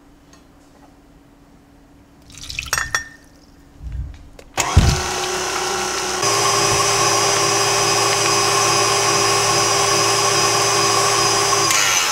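A few light knocks, then a KitchenAid Artisan stand mixer switches on with its wire whisk, its motor whirring steadily with a constant whine as it beats cake batter in the steel bowl. About a second and a half after starting it steps up to a higher, louder speed. It begins to run down at the very end.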